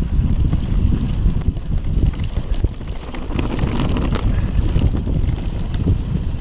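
Wind buffeting the microphone while an Orbea Rallon enduro mountain bike rolls fast down a rough grassy moorland track, its tyres rumbling over the ground with frequent knocks and rattles from the bike.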